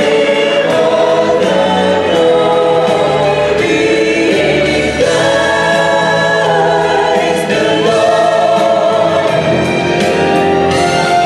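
A choir singing a gospel-style song with musical accompaniment.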